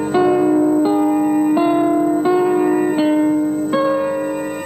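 Incidental music: a slow line of held notes, changing about every two-thirds of a second over a sustained low note, fading near the end.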